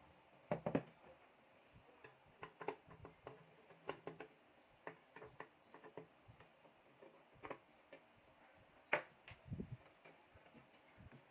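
Faint, irregular clicks and light knocks of computer parts being handled inside a desktop PC case, with a dull thump about nine and a half seconds in.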